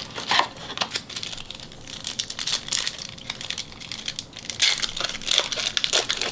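A 1991 Upper Deck football card pack's wrapper being torn open by hand, crinkling and crackling in a dense run of small crackles.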